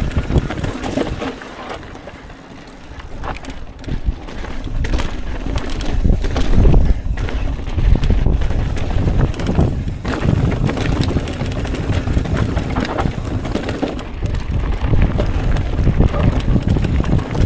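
Wind buffeting the microphone over a steady low rumble, with rattling clicks and knocks from a mountain bike rolling fast over a rocky trail. It dips briefly about two seconds in.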